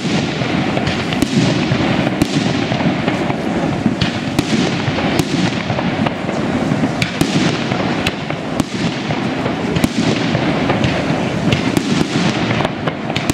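Aerial fireworks display: shells bursting in quick succession, many sharp bangs a second over a continuous rumble, with no break.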